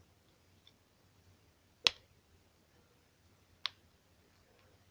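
Two short sharp clicks, a louder one about two seconds in and a fainter one near the end, from the small parts of an old float-type toilet cistern fill valve being handled while its rubber sealing gasket is taken off.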